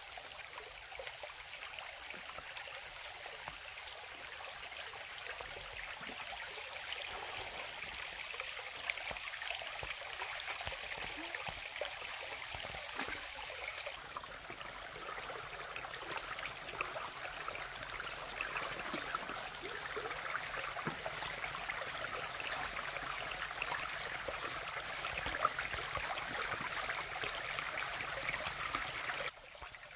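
Stream water running steadily, a constant rushing and trickling. It changes slightly about halfway through and drops off suddenly just before the end.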